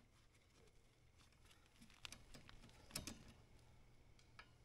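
Faint, scattered metal clicks of a wrench turning a plug in the Kubota KX040-4 excavator's track final-drive hub, the loudest about three seconds in.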